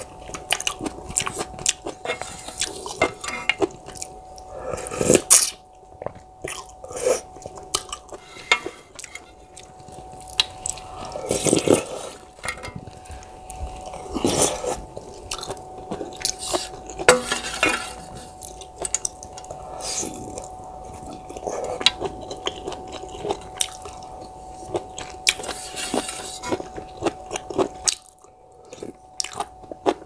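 Close-up eating sounds of Neoguri instant ramen: wet chewing with many sharp mouth clicks, broken by several louder slurps of the thick noodles and broth. A faint steady hum runs underneath.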